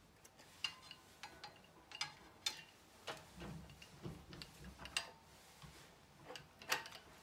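Faint, irregular metallic clicks and taps of a Phillips screwdriver and the crank handle against the steel hub of a wall-mount hose reel as the handle is fitted. The sharpest click comes near the end.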